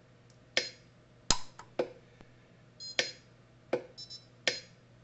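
Orion-type pulse-arc micro welder firing spot welds on stacked fountain-pen nib pieces: six sharp snaps, one every half second to a second, with brief high beeps between some of them.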